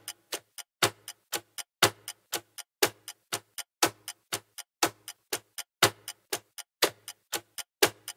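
Countdown-timer clock ticking sound effect: even ticks about four a second, with a louder tick on each second.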